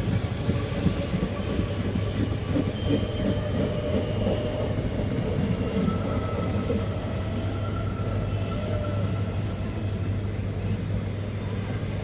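WDG4 diesel locomotive hauling an express train: a steady low hum with dense rattling of the running gear and faint thin squeals above it.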